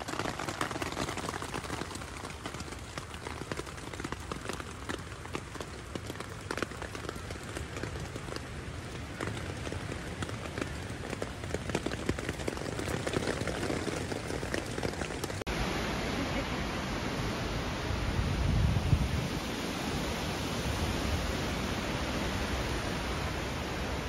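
Rain falling on a tent's fabric, heard from inside the tent: a dense, steady patter of drops. About two-thirds of the way through, the sound changes abruptly to a smoother hiss, with a brief low rumble a few seconds later.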